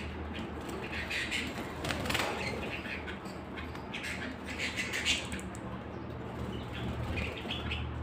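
A flock of caged canaries chirping and twittering in short bursts every second or two, with a brief flutter of wings about two seconds in.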